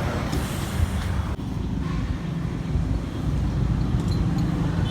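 Car driving on the road: a steady low rumble of engine and tyres, with wind noise on the microphone.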